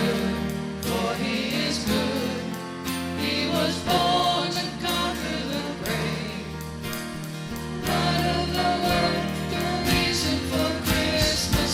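Contemporary worship band music: voices singing over band instruments, with a steady drum beat.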